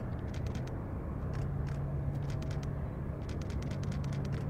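Airbus A321neo's Pratt & Whitney PW1100G geared turbofan engines running at low taxi power: a steady low rumble and hum that rises slightly in pitch about a second in, with scattered faint clicks over it.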